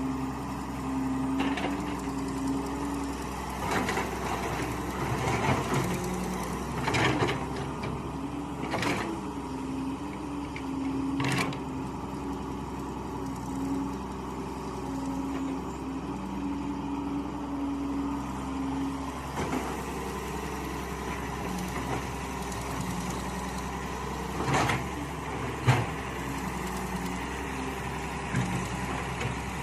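Mini excavator engine running steadily, its note shifting as the hydraulics take load while digging, with a handful of sharp clanks and scrapes from the bucket and arm.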